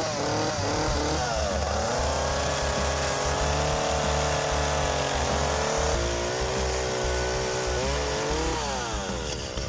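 Two-stroke gas chainsaw cutting through the weathered, rotted top of a wooden utility pole. The revs are blipped a few times at first, then held high and steady through the cut, and rise and fall again near the end.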